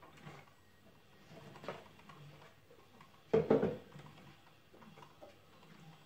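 Kitchen items being handled on a counter: a few light knocks and clatters of plastic and metal, the loudest a quick double knock about three and a half seconds in.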